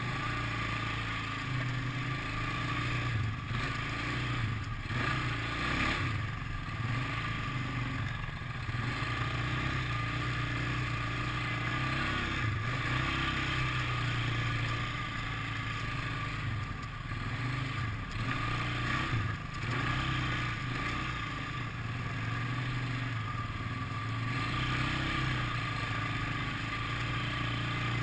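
ATV engine running while riding a rough dirt trail, its pitch rising and falling with the throttle, with occasional knocks and rattles from the bumps.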